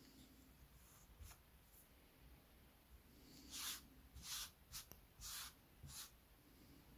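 Faint, soft scuffs, about five in quick succession past the middle: fingers sweeping small wood shavings together across a cutting mat.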